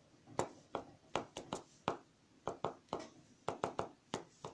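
Sharpie marker tip tapping dots onto paper: a dozen or so short, sharp taps at an uneven pace.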